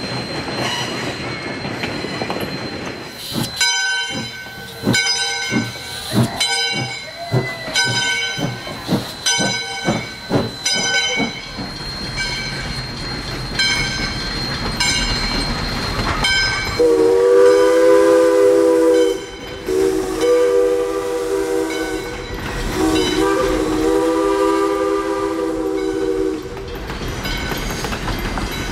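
A steam locomotive's bell ringing about once a second over the rumble of the passing train. From about the middle, Valley Railroad No. 40's chime steam whistle sounds a three-note chord in the grade-crossing pattern of long, long, short, long, with another blast starting at the very end.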